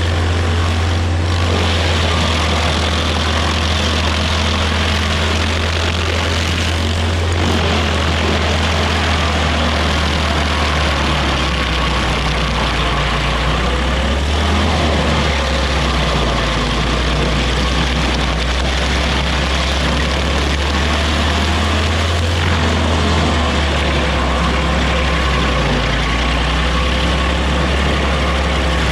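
Small Rayco stump grinder's engine running hard while its cutter wheel chews through a rotten stump. The engine note sags for a moment several times as the wheel takes a bite, over a steady grinding rasp.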